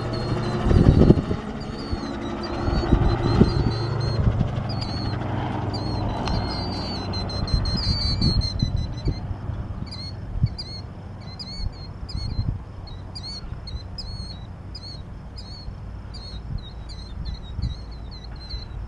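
Titanium Explorer gyroplane's engine and pusher propeller droning as it flies past, fading away over the first half, with wind buffeting the microphone about a second in. A bird chirps repeatedly, about twice a second, and is left alone once the aircraft fades.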